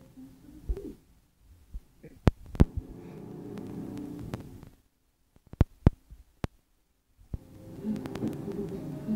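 Muffled film soundtrack playing from a television, heard through a phone's microphone: two stretches of low, humming sound with faint pitched tones in it, broken by several sharp clicks or knocks.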